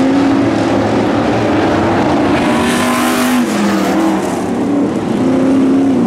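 A field of dirt-track pro stock race cars running at speed, several V8 engines heard together. One engine note drops about halfway through, as a car lifts off, and picks up again near the end.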